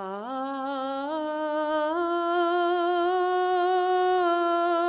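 One voice singing a drawn-out liturgical chant line in a Byzantine-rite service. It rises in three steps to a long held note, which falls away near the end.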